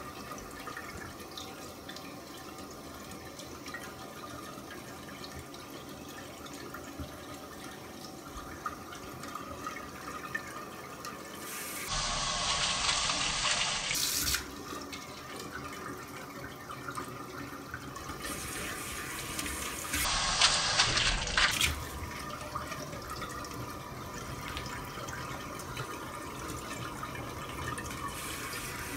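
Water running steadily from a bidet tap into the ceramic bowl, with two louder spells of splashing, about 12 and 20 seconds in, as a Bengal cat paws at the stream.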